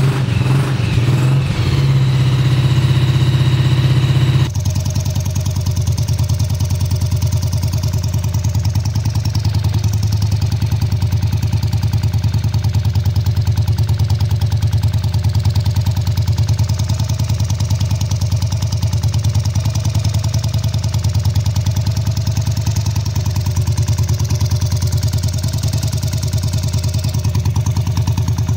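BSA C15's single-cylinder four-stroke engine running with no silencer, just after its first start following a rebuild. It runs fast for the first few seconds, then drops abruptly to a steady idle about four and a half seconds in.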